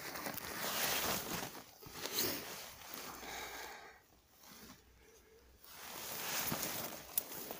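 Boots pushing and crunching through deep snow and brushing past bare shrubs, in uneven swells of rough noise with a quieter pause in the middle.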